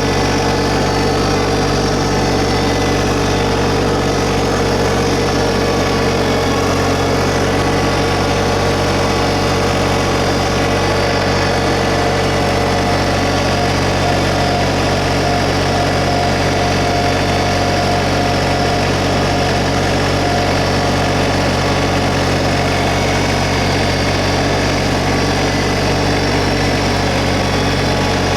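LS MT125 compact tractor's diesel engine running steadily at a constant speed.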